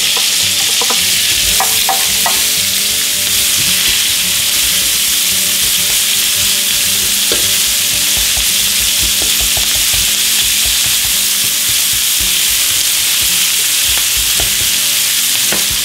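Diced onions frying in hot schnitzel oil in a skillet: a steady sizzle, with a few short clicks as they are stirred with tongs.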